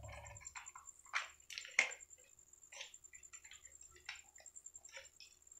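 Masonry drill bits being handled and one picked out of its case: scattered light clicks and taps, the sharpest about a second and nearly two seconds in.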